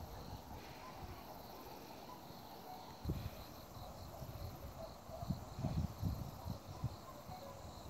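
Faint crickets chirping in a steady, rapid pulse, with a few soft low thumps on the microphone from about three seconds in.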